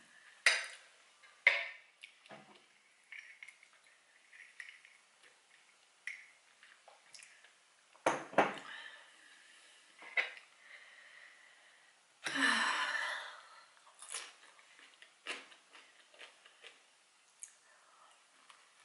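A metal fork clinking and scraping against a plate of food in sharp single clicks, with one longer scrape about twelve seconds in. Soft chewing sounds come between the clinks.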